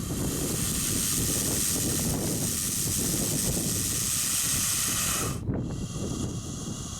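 Bull snake hissing defensively, forcing air out past its glottis: one long, loud hiss of about five seconds that cuts off suddenly, with wind rumbling on the microphone underneath.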